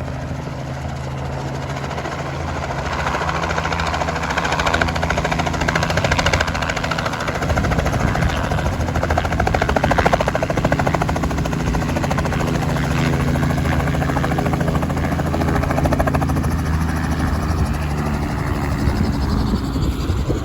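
Tour helicopter arriving close by, its rotor chopping rapidly over a steady engine drone. It grows louder over the first several seconds, then stays loud.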